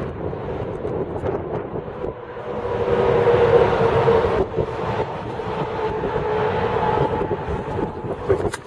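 Wind rumbling on the microphone over the steady drone of a distant heavy vehicle engine, which swells about three seconds in and then slowly fades. A sharp click comes near the end.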